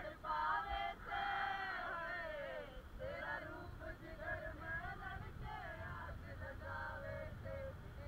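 Several voices singing together, with a long held note that slides down about a second in, over a steady low rush of river water and wind.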